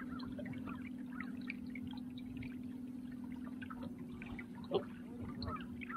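Water lapping and trickling against a kayak hull over the steady hum of the kayak's electric trolling motor, with a single sharp knock about three-quarters of the way through.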